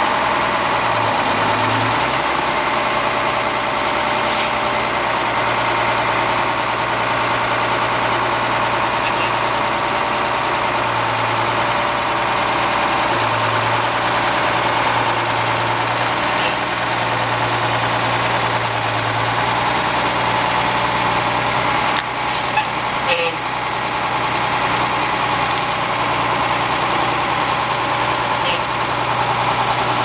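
Diesel engine of a 1983 Peterbilt 348 concrete pump truck running steadily as the truck manoeuvres slowly, its low hum swelling and easing. A few brief sharp sounds cut in, the clearest pair a little past two-thirds through.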